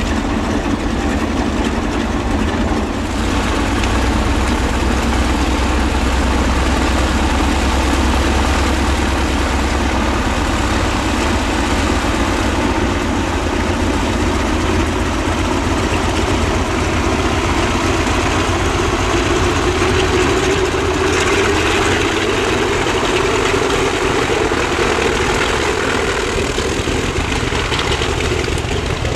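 Junkers Ju 52's three radial piston engines running steadily as the aircraft taxis, with the engine note growing fuller in the second half as power comes up and the propellers blow up dust.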